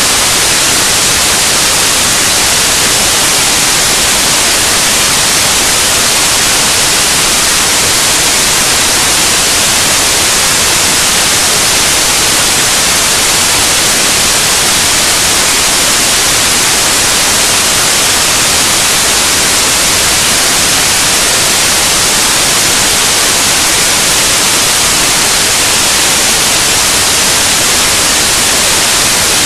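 Loud, steady static hiss, even and unchanging, with no tones, breaks or other sounds in it.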